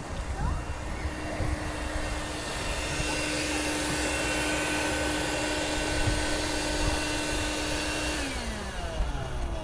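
Sinclair C5 electric tricycle's motor whining at one steady pitch as it comes closer, then dropping in pitch as it passes, about eight seconds in, over a steady rushing noise.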